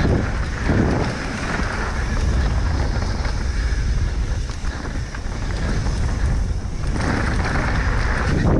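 Wind buffeting the microphone over the rumble of a mountain bike rolling fast down a dirt downhill trail.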